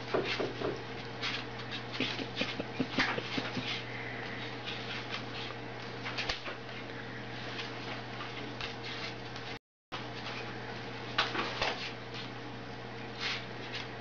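Short, scattered animal squeaks and clicks over a steady background hum.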